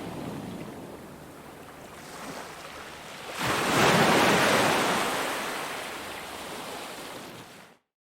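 Ocean waves on a beach: a steady wash of surf, then a wave breaks about three and a half seconds in and slowly washes out. The sound cuts off abruptly near the end.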